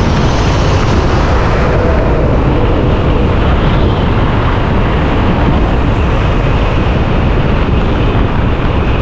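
Steady rush of wind and road noise on the microphone of a custom electric scooter (a Yamaha BWS 100 conversion) riding at road speed. The noise is loud and even throughout, with no engine note.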